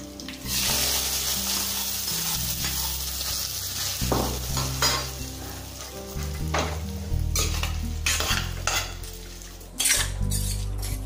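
A hot tempering of mustard seeds, cumin, curry leaves and green chilli in oil and ghee is poured from a small kadai onto cooked drumstick curry, giving a loud sizzle that fades over about three seconds. After that, a spoon scrapes and clinks against the steel pot as the curry is stirred.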